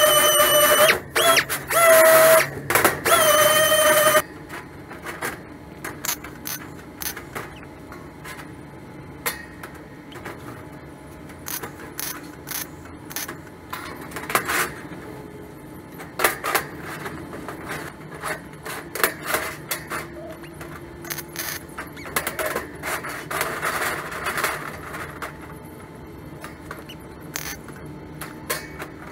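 Small orbital disc sander whining on a sheet of 24-gauge steel, cutting out briefly twice, then stopping about four seconds in. After that, irregular clicks, snips and scrapes of sheet steel being cut and handled with hand tools.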